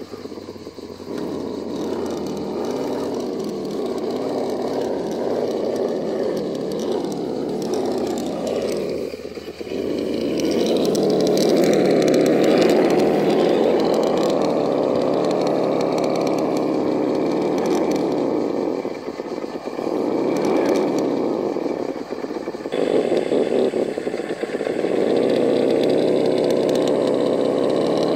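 A Vaterra Ascender RC rock crawler's electric motor and geared drivetrain whirring as it crawls over rocks. The whir gets louder about a third of the way in and eases off briefly a few times as the throttle changes.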